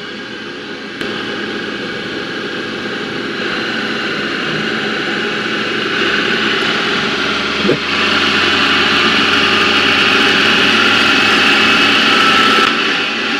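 Navien CH-240 gas combi boiler starting up with its newly installed recirculation pump: a steady rushing hum that grows louder in steps, with a brief chirp about eight seconds in and a slight drop near the end.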